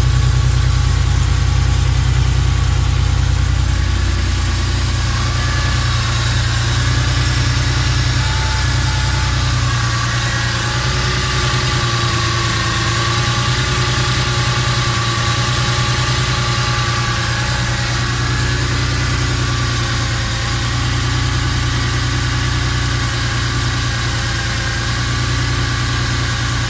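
Air-cooled 3.2-litre flat-six of a 1987 Porsche 911 Carrera idling just after start-up. It runs steadily with a strong low rumble that eases a little after about ten seconds.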